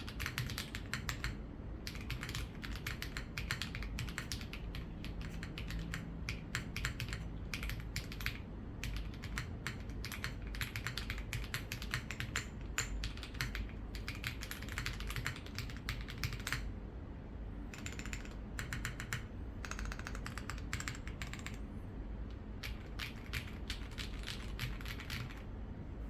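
Typing on an Alina80 custom mechanical keyboard with Qianhu switches: fast runs of key clicks with short pauses between them.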